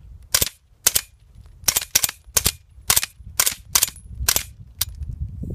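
Suppressed 9mm AR-style carbine (16-inch Rock River Arms 9mm upper with a YHM XL Wraith suppressor) firing a rapid string of about eleven semi-automatic shots, roughly two a second. Each shot is a short, sharp crack, which the shooter says you can barely hear, quiet enough to fire with no earplugs.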